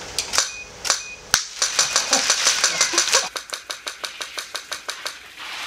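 Camera shutter firing: a few single clicks, then a rapid, even burst of about seven clicks a second for some three and a half seconds. Two short high beeps come within the first second and a half.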